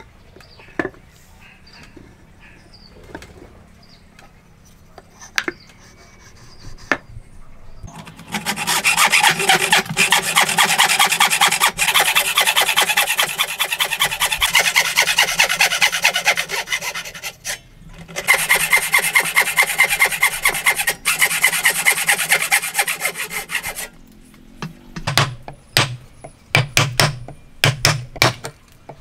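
Traditional wooden frame saw cutting hardwood by hand in quick back-and-forth strokes, in two long runs with a short break between. A few light knocks of wood being handled come before it. Near the end a chisel is struck in a run of sharp knocks.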